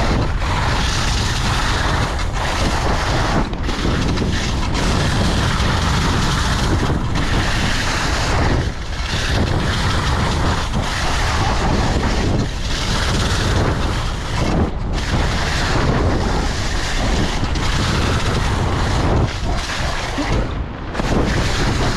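Wind rushing over an action camera's microphone during a fast ski run, mixed with the hiss of skis sliding over snow. It is a steady, loud rush with a few brief dips.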